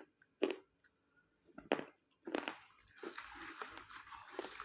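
Slate pencil being bitten and chewed: a few sharp crunches in the first half, then steady gritty grinding as the pieces are chewed.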